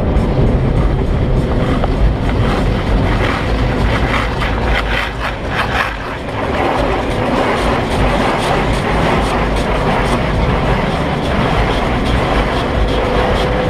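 Car wash running: a loud, steady rush of spraying water and machinery over a low rumble, easing briefly about six seconds in.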